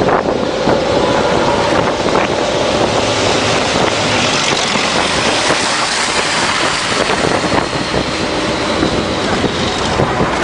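Steady, loud noise of a military convoy on the move: engines and tracks of tracked armoured vehicles passing at speed, with wind on the microphone.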